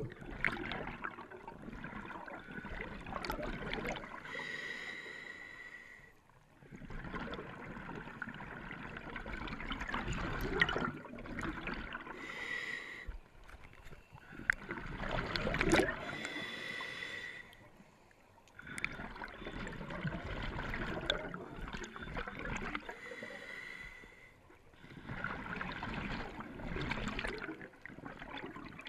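Scuba diver breathing through a regulator underwater: stretches of bubbling noise a few seconds long alternate with shorter hissing stretches that carry a steady whistle-like tone, the cycle repeating every several seconds.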